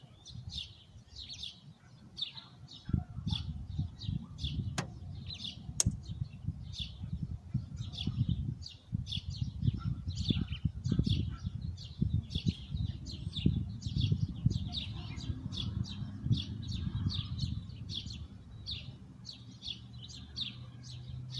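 A bird chirping over and over, a few short chirps a second, over an uneven low rumble. Two sharp clicks come about five and six seconds in.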